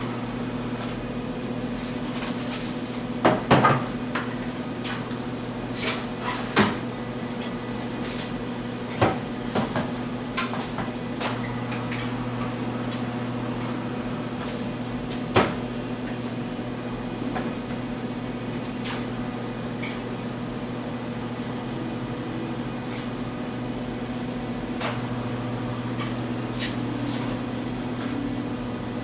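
Scattered knocks and clatters of plastic buckets and metal ingredient bins being handled while glaze powders are weighed out, the sharpest cluster a few seconds in, over a steady low hum.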